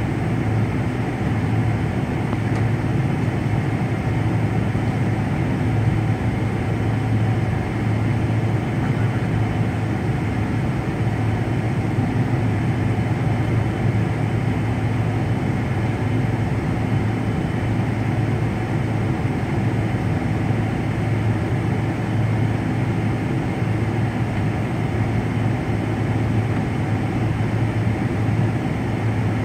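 Jet airliner's engines running at low power on the ground, heard inside the cabin as a steady drone with a strong low hum.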